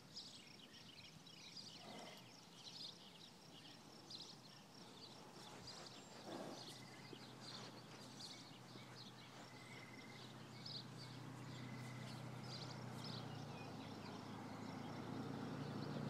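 Quiet outdoor ambience beside a standing horse: many faint, high chirps throughout and a couple of soft noises from the mare, about 2 and 6 seconds in. A vehicle engine's low hum grows steadily louder over the last several seconds.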